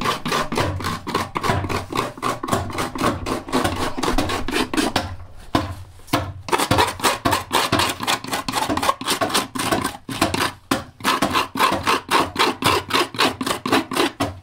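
Hand adze (rough keser) chopping into a green mulberry-wood saz bowl as it is hollowed out, in quick, even strokes about four a second, with a short pause about five seconds in.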